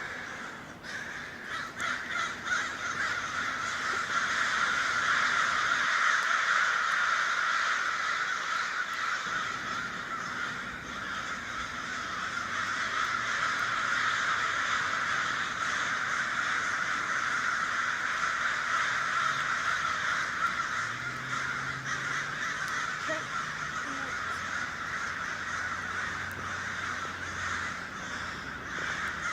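A large flock of birds calling all at once, a dense unbroken chorus of many overlapping calls that swells a few seconds in and then holds steady.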